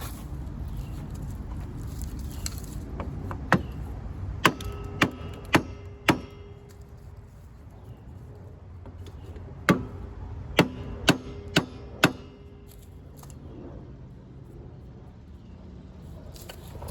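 Hammer striking metal in two runs of five blows, each blow followed by a short metallic ring, over a steady low background hum.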